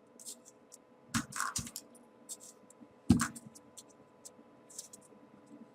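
Paper rustling and light clicks as small folded 3D origami paper pieces are handled and pushed into the model, with two louder knocks about a second in and about three seconds in.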